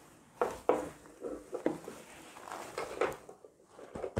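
Handling noise from a padded fabric baby hip-seat carrier being turned over and unfolded: a string of irregular rustles and light knocks from its fabric, straps and buckles, the strongest about half a second in.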